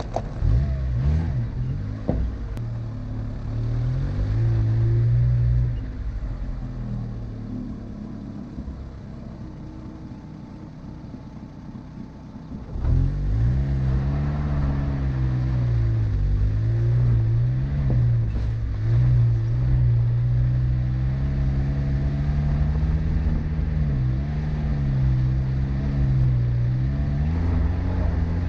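Car engine working hard off-road, its pitch rising and falling as the throttle comes on and off. It eases to a low hum for several seconds, then picks up sharply just under halfway through and keeps running hard with repeated swells.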